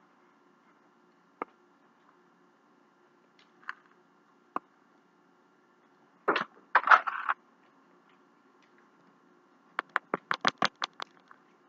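Close-up eating sounds of a person eating with gloved hands. A few lone clicks come first, then a loud crunchy stretch about six seconds in, and near the end a quick run of about eight sharp mouth clicks.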